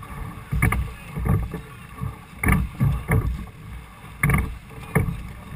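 Rowing stroke of a six-oared Cornish pilot gig: the wooden oars knock against the thole pins in pairs of sharp clunks, a pair about every two seconds in time with the stroke, over a steady rush of wind and water.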